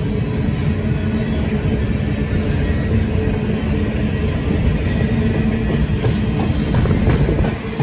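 Covered hopper cars of a Canadian Pacific freight train rolling past at close range: a steady, loud rumble of steel wheels on the rails.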